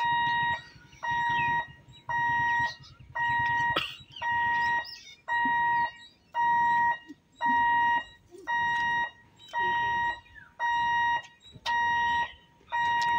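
Level-crossing warning alarm beeping: an electronic tone repeating a little more than once a second, each beep about half a second long, warning of an approaching train.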